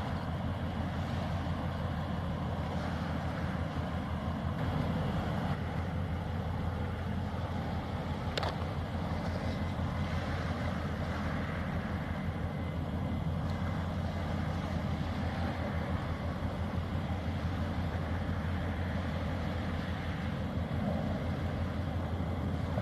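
Steady low engine drone with a constant deep hum, unchanging throughout, with a single brief click about eight seconds in.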